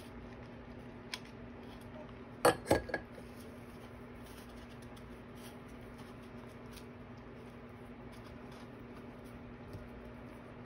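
Handling noise of hot-glue crafting as fabric is pressed onto a styrofoam disc, with a quick cluster of three or four hard clacks about two and a half seconds in. A steady low hum runs underneath.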